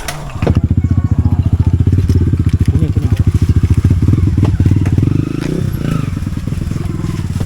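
A small engine running close by with a rapid, even low beat, loud for about the first five seconds and then quieter.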